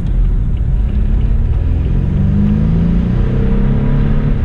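BMW F30 328i's 2.0-litre turbocharged four-cylinder engine pulling under acceleration, its pitch rising over the second half.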